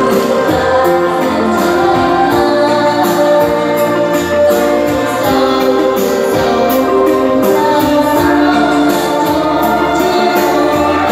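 A woman singing karaoke into an amplified microphone over a backing track with a steady beat, held notes carried by the PA.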